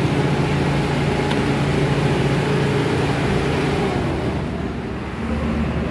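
I-Power SM2000i inverter generator running at a steady speed, an even engine hum; about five seconds in its note changes.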